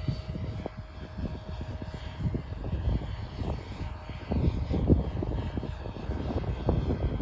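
Align T-Rex 550L electric RC helicopter flying a circuit at a distance: a steady hum of motor and rotor with a faint thin tone, under a gusty low rumble of wind on the microphone.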